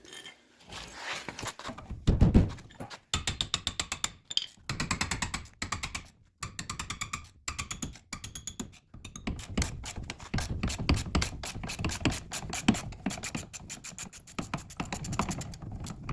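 Socket ratchet clicking in quick runs with short pauses, backing out a 17 mm brake caliper bracket bolt. A heavy thump comes about two seconds in.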